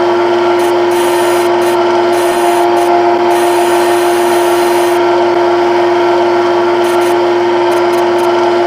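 Synthetic lathe machining sound from a CNC lathe simulator: a steady machine hum, one constant tone over an even hiss, that does not change as the virtual tool moves from finishing to threading to parting off.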